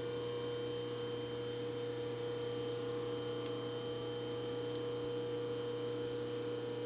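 Steady electrical hum of running shop machinery, with a couple of faint clicks about three and a half seconds in.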